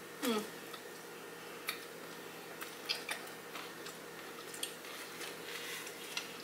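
A person chewing a mouthful of Subway Italian BMT sub, close to the microphone: soft, scattered wet mouth clicks and smacks, with a short falling hum from the eater's voice just after the start.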